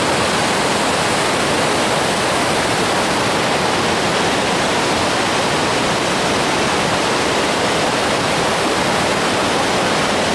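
Creek below Wahkeena Falls cascading over rocks: a steady, loud rush of falling water.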